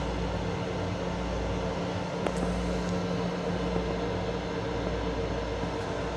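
Steady hum of a Metro-North M7 electric railcar heard from inside its small restroom: a low rumble that swells and eases, with a couple of steady droning tones, and one faint click about two seconds in.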